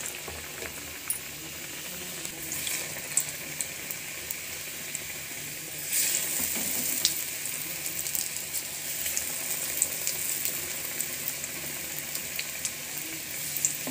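Gram-flour-battered potato slices (aloo bajji) deep-frying in hot oil in a steel kadai: a steady sizzle with scattered sharp pops and crackles. The sizzle swells about six seconds in as another battered slice goes into the oil.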